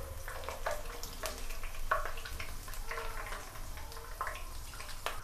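Hot oil sizzling softly in a wok while a steel ladle scoops out fried green chillies, with a few light clicks of the ladle against the pan.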